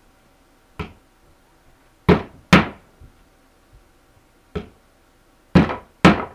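Hammer driving nails through a beaver pelt into a wooden stretching board: six sharp strikes at uneven intervals, including two close pairs.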